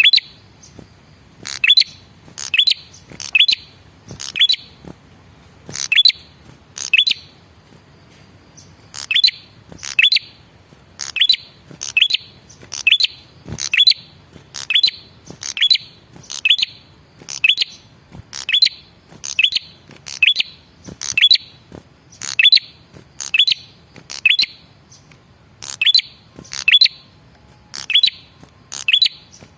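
Male red-headed prenjak, a small songbird, giving sharp, short chirping calls over and over, about one or two a second and often in quick pairs. It is a lure recording of the male's call, used to set other birds calling.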